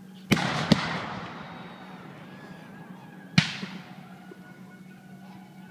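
Black-powder cannons firing blank charges: two loud booms about half a second apart, then a third about three seconds later, each echoing and dying away over a second or more.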